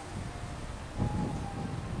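Wind buffeting the microphone: an irregular low rumble over a steady hiss, growing stronger about a second in, with a few faint thin held tones.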